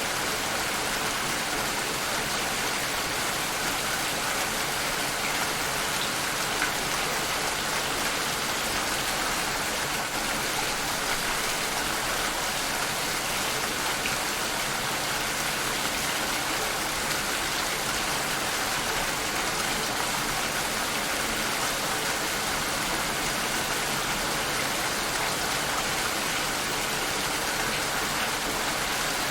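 Steady rainfall, an even hiss of drops with a few faint individual drop ticks.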